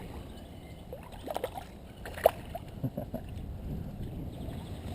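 Water sloshing and lapping, with a few short sharp splashes: a cluster about a second and a half in, the loudest just after two seconds, and a few more near three seconds.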